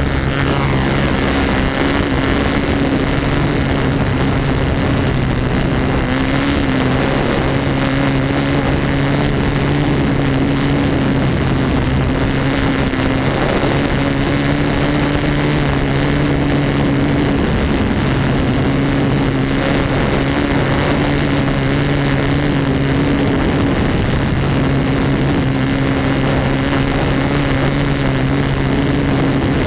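Engine of a control-line (U-control) model airplane running steadily in flight, heard from a camera on the wing, with the pitch wavering briefly now and then.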